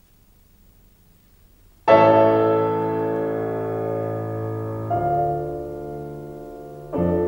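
Solo piano playing slow, held chords. After near quiet, a loud chord is struck about two seconds in and slowly fades, and further chords follow about five and seven seconds in.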